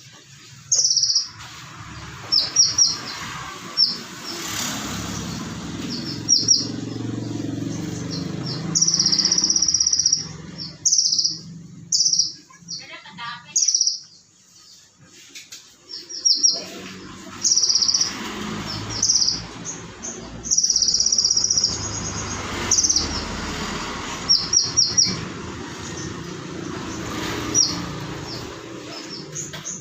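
Konin (kolibri ninja) sunbird singing: sharp, high chirps and fast trills in short loud bursts, again and again, with a steady low background rumble beneath. The song is said to carry imitations of the cililin and of crickets.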